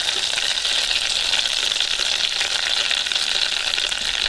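Hot oil in an electric deep fat fryer sizzling steadily with dense fine crackling as mashed-potato spoon fries fry in the basket. The mash is breaking up and disintegrating into the oil.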